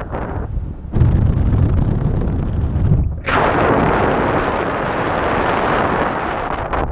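Wind buffeting a paraglider pilot's microphone in flight: a low rumble, then a louder, even rushing hiss from about three seconds in.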